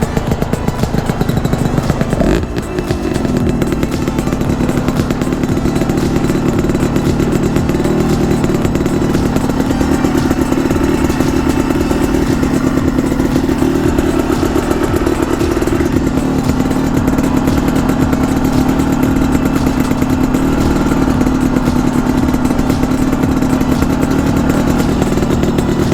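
Honda CRM250R's two-stroke single-cylinder engine running while the bike is ridden. The engine note dips briefly about two and a half seconds in, as with a gear change or a lift off the throttle, then pulls steadily on.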